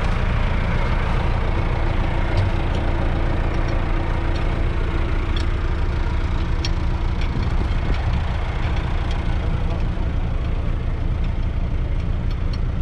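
Massey Ferguson 4235's 4.2-litre four-cylinder diesel idling steadily, with a few light clicks as the plough is worked on with a spanner.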